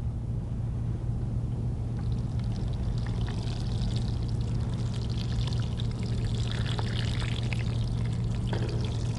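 Water sprinkling from a plastic watering can's sprinkler head onto bare wet soil in a plastic tray: a steady pattering spray that builds about two seconds in and eases near the end, over a steady low hum.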